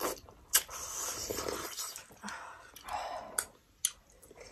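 Close-miked eating: soup being slurped from a bowl and momo dumplings being chewed, with wet mouth clicks and smacks.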